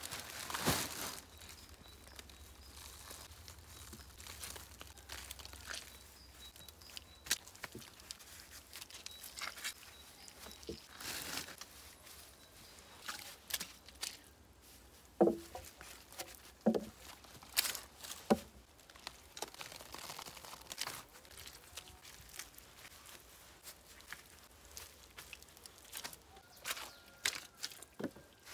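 Handling noise of building a log wall: a plastic sack rustling and moss being torn and packed between logs, with footsteps on soil. About halfway through come a few sharp wooden knocks as a log is set against the stakes.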